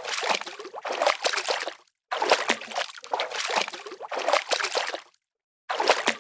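Water sloshing and splashing at a beach, an uneven rushing with many small splashes. It cuts off abruptly to dead silence twice, about two seconds in and again about five seconds in, then resumes.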